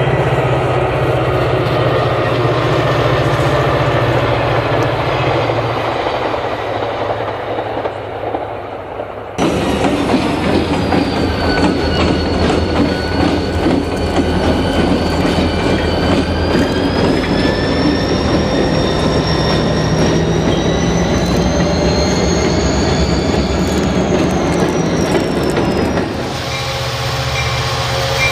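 Trains running, cut from clip to clip. A steady rumble with a low hum, then Union Pacific diesel locomotives rolling through a yard with the wheels squealing in long, wavering high tones. Near the end the sound cuts to a different train.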